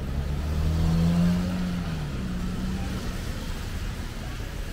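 Car engine accelerating through a wet city intersection, its low hum rising in pitch and loudest about a second in, then easing off, over the steady hiss of traffic on wet pavement.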